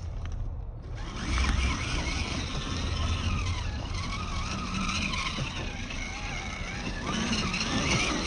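Radio-controlled Mercedes 6x6 scale truck driving over loose rock and dirt: its electric motor and gears whine, rising and falling in pitch with the throttle, over the grind of its tyres on the gravel. The whine and grinding come in strongly about a second in.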